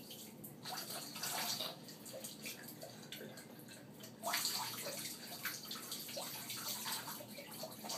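Water streaming from a plastic toy watering can and splashing into bath water and onto a baby, with a louder stretch of pouring starting about four seconds in.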